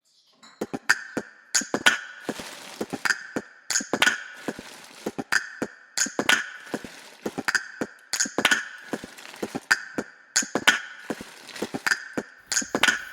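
Footsteps crunching on dry ground, at about one step every two-thirds of a second with a slightly uneven rhythm.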